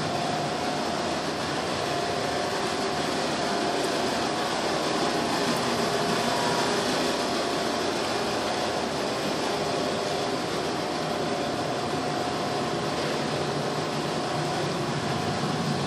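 Steady air-conditioning hiss with a faint, even hum.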